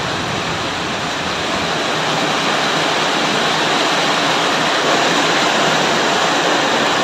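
Rain falling steadily, a dense even hiss that grows slightly louder.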